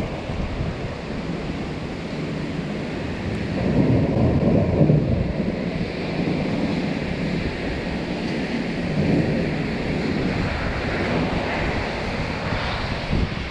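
Wind buffeting the microphone during a thunderstorm: a steady low rushing that swells louder about four seconds in.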